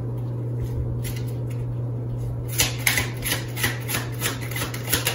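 Tarot cards being shuffled by hand: a run of quick rubbing strokes, about four a second, starting about two and a half seconds in, over a steady low hum.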